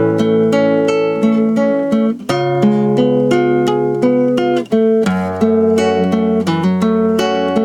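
Acoustic guitar playing an instrumental passage, picked and strummed chords changing about once a second.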